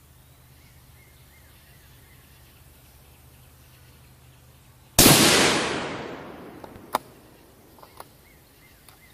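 A single shot from a 6mm Creedmoor bolt-action rifle about halfway through, its report dying away over about a second and a half. About two seconds later comes one sharp click, then a few softer clicks.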